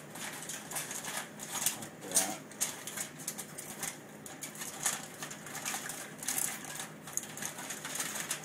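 Aluminium foil crinkling and crackling irregularly as it is folded and crimped by hand.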